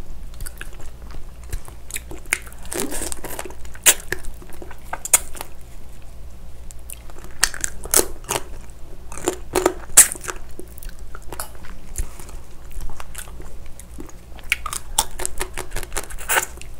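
Close-up eating of raw marinated crab (gejang): biting, crunching and chewing on the crab shell, with scattered crackles and a few sharp cracks.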